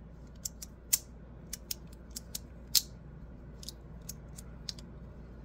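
Magnetic fidget slider being worked in the hand: its plates slide and snap together with a string of light, irregular clicks, about fifteen, the sharpest about a second in and near the three-second mark.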